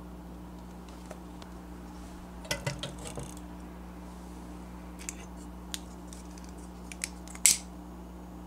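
Small clicks and a brief clatter as the little metal door of a miniature stove is opened and a tea light in its metal cup is taken out. Then a few scattered clicks, and near the end a sharp, louder strike of a disposable lighter that lights the tea light.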